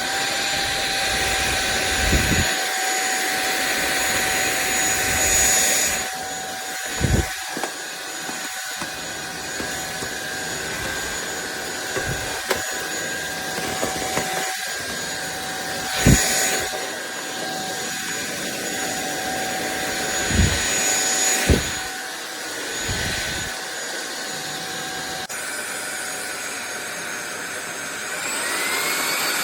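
SunSare X7A cordless stick vacuum cleaner running: a steady motor whine over the rush of suction, with low thumps from time to time as the head is moved about. The motor's pitch rises again near the end.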